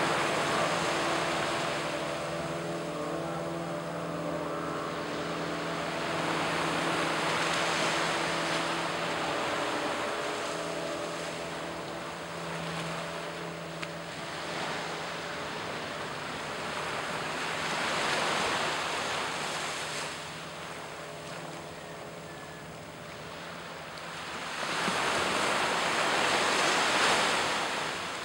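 Small waves breaking and washing up on a sandy beach, the surf rising and falling in slow swells about every eight seconds, loudest near the end. A faint low hum runs underneath.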